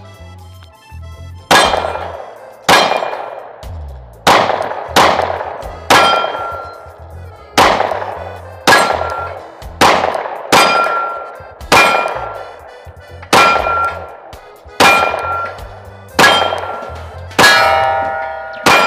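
A Glock 43X MOS 9mm pistol fired at a steel target in a steady string of about fifteen shots, roughly one a second, most followed by the ring of the steel plate being hit. The string runs through the 15-round PSA Dagger Micro magazine without a pause for a stoppage: no feeding issues.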